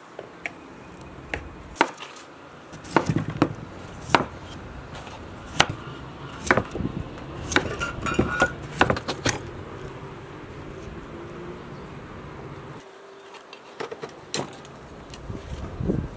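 Kitchen knife cutting peeled raw potatoes into chunks on a wooden cutting board: irregular sharp knocks of the blade through the potato onto the board, with a quieter pause of a few seconds before more knocks near the end.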